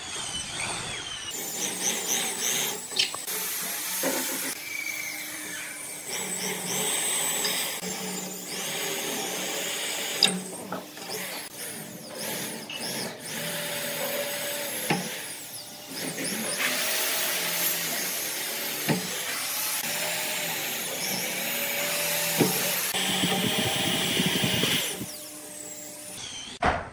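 Corded electric drill boring holes through a wooden board, running in a series of bursts that start and stop, its motor pitch dipping as the bit bites into the wood.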